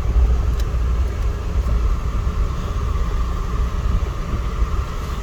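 Car driving slowly, a steady low rumble of engine and tyres.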